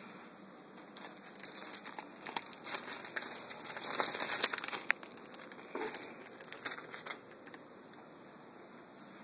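Scratchy rustling and crinkling right at the microphone as kittens scramble on a carpeted cat tower. It comes in irregular bursts from about a second in to about seven seconds in and is loudest around four seconds in.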